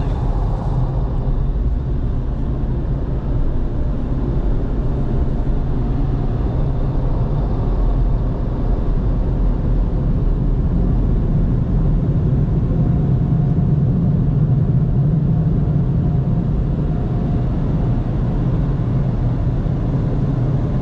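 Automatic car wash air dryer blowers heard from inside the car's cabin: a loud, steady rush with a low hum that grows stronger past the middle.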